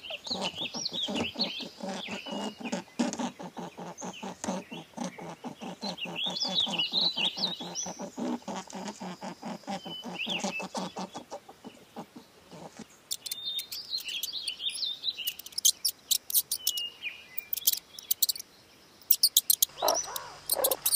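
A coypu chewing in quick, even crunches, about five a second, while small birds chirp. The chewing stops about eleven seconds in, leaving birdsong and sharp high clicks.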